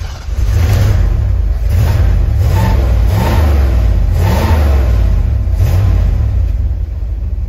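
Carbureted V8-era engine of a 1979 Ford F-250 running, heard from inside the cab, revved up in several short blips over a steady idle. The owner blames its poor running on old gas and a troublesome carburetor.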